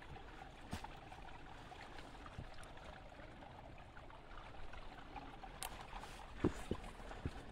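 A small stream running steadily. Several footsteps thud on the trail near the end.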